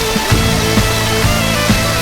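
Background music with a steady beat, about two beats a second, under sustained chords.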